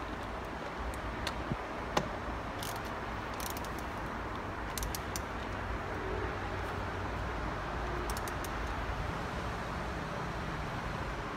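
Socket ratchet clicking in short, scattered runs as the steering-wheel retaining bolts are tightened, over a steady low hum.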